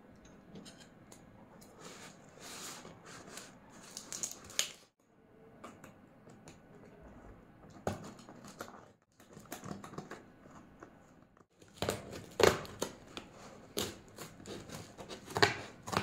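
A taped cardboard shipping parcel being handled and torn open by hand: scraping and rustling of the box and packing tape, turning into a string of louder, sharper rips and crackles in the last few seconds as the cardboard flap tears.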